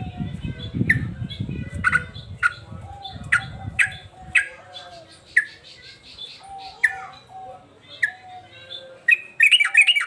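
Male yellow-vented bulbul (trucukan) calling in an agitated, sustained run of sharp, short falling notes, about one or two a second, breaking into a quick burst of chattering notes near the end. A low rumble sits under the first few seconds.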